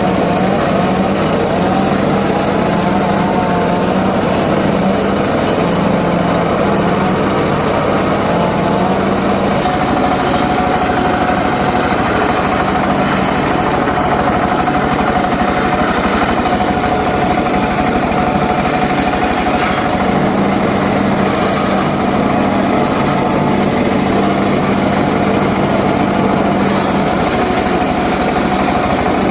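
Small engine of a wood-cutting saw running continuously under load, a steady mechanical drone with a hum that comes and goes, while cutting johar timber.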